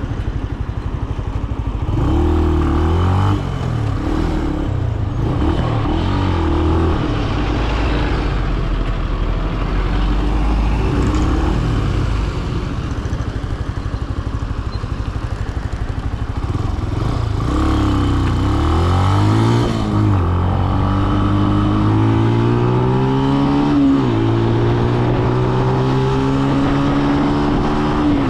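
Benelli BN125's single-cylinder engine being ridden in traffic. It gives short revs up and down at first, runs lower and steadier in the middle, then pulls up through the gears near the end, its pitch climbing, dropping at a gear change and climbing again.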